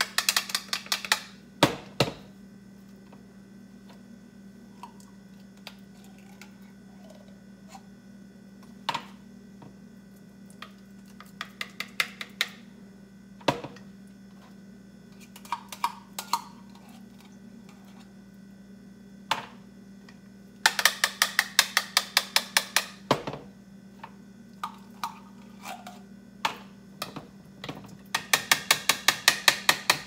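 Quick runs of sharp clicks and taps, about six a second, with single knocks between them: a utensil tapping and scraping tomato paste out of a metal can into a plastic blender cup.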